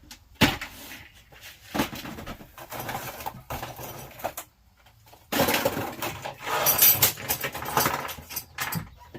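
A sharp knock, then bouts of scraping, rattling and clattering as a table is slid and worked under a truck toolbox, with the loudest scraping in the second half.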